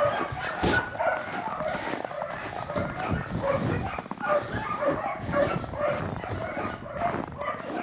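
Dogs barking and yipping in a dense run of short calls throughout.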